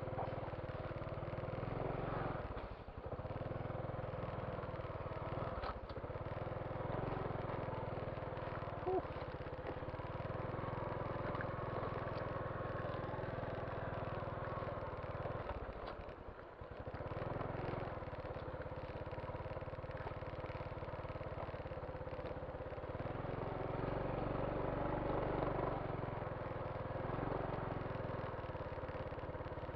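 Motorcycle engine running steadily, as when riding along, with two brief drops in sound about 3 and 16 seconds in.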